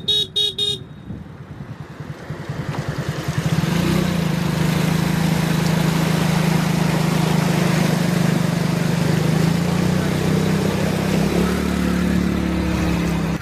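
A vehicle horn beeps a few times in quick succession at the very start, then a motor vehicle's engine runs, its separate firing pulses heard at first and settling into a steady, loud engine note from about four seconds in.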